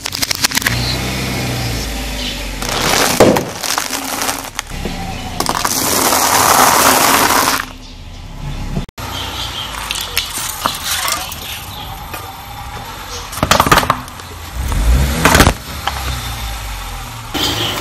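A car tyre rolling slowly over objects and crushing them: a plastic toy truck cracking and splintering under the wheel, then more crunching and cracking under the tyre. Sharp cracks and crunches come several times over the car's low engine rumble.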